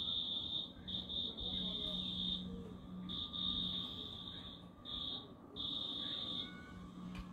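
Insect trilling on one steady high pitch, in about five bouts of half a second to a second and a half with short gaps between them.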